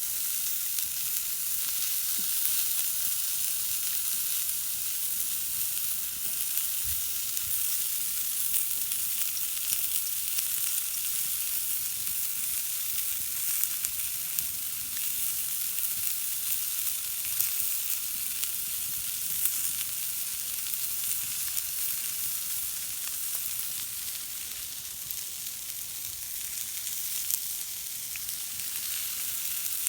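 Wood campfire burning, a steady crackle and hiss with frequent small pops and snaps.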